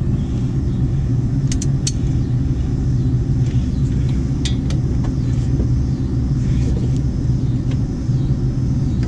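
A steady low droning hum throughout, with a few short sharp metallic clicks of a breaker bar and socket working on a brake caliper bolt.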